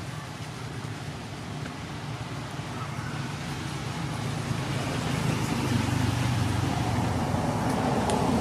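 Motor vehicle engine running, a low steady hum that grows louder from about three seconds in and then holds.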